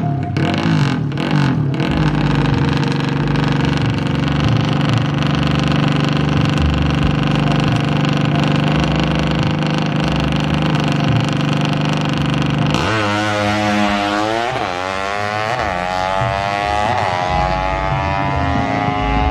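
Fuel-injected 130cc drag bike engine, revved in a few quick blips and then held at steady high revs for about ten seconds. Near the end it drops off sharply and is revved up and down in swoops.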